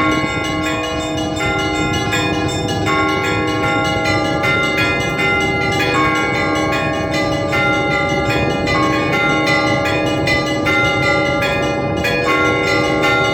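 Russian Orthodox church bells rung in a festive peal: quick, dense strikes of the smaller, higher bells over the steady ringing of the lower bells, continuing without a break.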